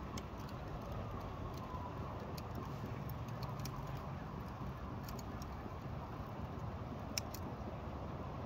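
Fire burning in a boiler's firebox: a steady low rush with scattered small crackles and ticks, and one sharper tick about seven seconds in.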